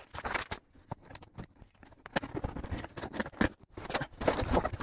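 Cardboard shipping boxes being handled: irregular rustling, scraping and small knocks of cardboard flaps and sides.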